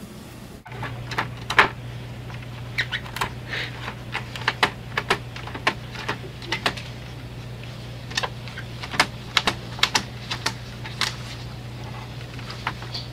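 Printer running: a steady low hum with many irregular sharp clicks and taps.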